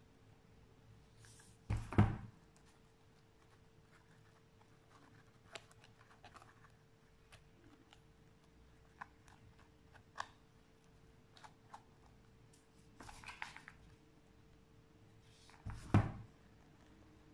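Hand-crafting handling noises: two loud knocks on the table, about two seconds in and near the end, with scattered small clicks and a brief rustle as hands glue and press trim onto a foam basket. A faint steady hum runs underneath.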